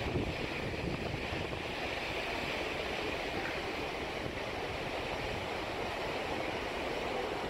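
Steady rushing noise of wind and water over a low rumble.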